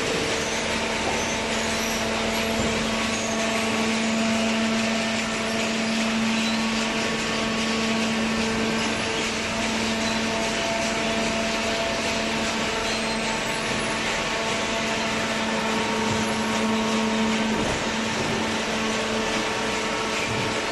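Hydraulic power unit of a cardboard baler running steadily: an even machine hum with a constant low tone.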